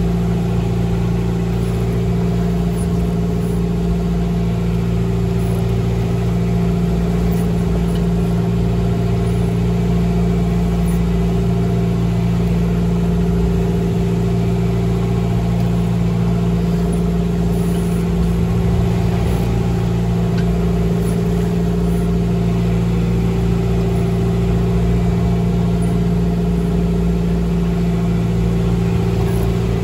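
A sailboat's inboard engine running steadily under way, a constant hum that holds the same pitch throughout.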